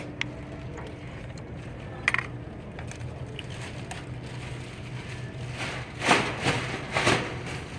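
Compression tester being fitted into a spark plug hole: a few light clicks and two short scraping noises about six and seven seconds in, over a steady low hum.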